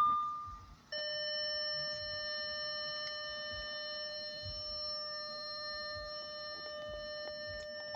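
A short electronic beep, then about a second in a steady, unbroken electronic tone with several overtones that holds on.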